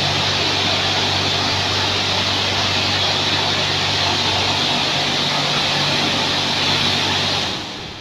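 Touchless car wash spraying high-pressure water onto a car: a steady hiss over the low, even hum of the pump motor. Spray and hum cut off together near the end.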